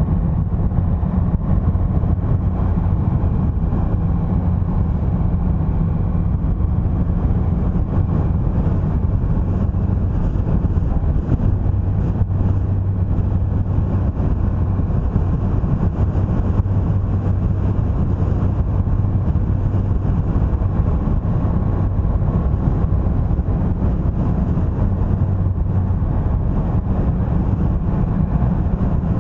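Vehicle engine and road noise from a car driving steadily along a road, a constant low hum with no change in pace.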